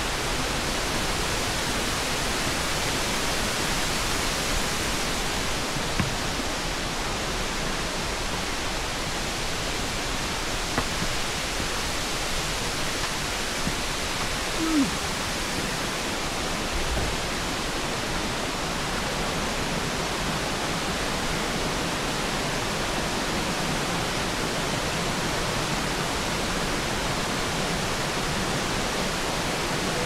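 Steady rushing of Jacob Fork creek's water running over rocks, an even hiss.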